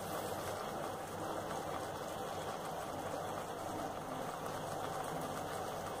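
Steady low hum with an even hiss from a gas burner under a steel pan of chicken simmering in gravy.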